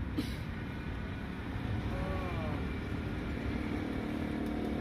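Steady low rumble of a running vehicle engine, with one sharp click a moment in and a short squeak that rises and falls about two seconds in.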